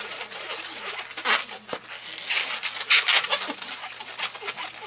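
Latex 260 modelling balloon squeaking and rubbing as small bubbles are twisted into it, with a few sharp rustles of hands on the balloon.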